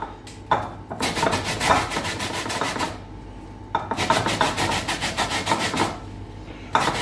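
Orange peel being grated on a metal grating plate set in a plastic grater: rapid back-and-forth scraping strokes in runs, with short pauses about three and six seconds in.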